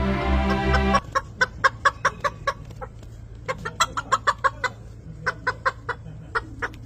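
Background music cuts off about a second in, giving way to Japanese bantam chickens clucking: runs of short, quick clucks, several a second, with brief pauses between the runs.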